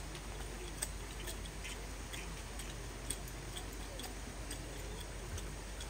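Light rain: scattered drops ticking irregularly, a few a second, over a steady outdoor background hum.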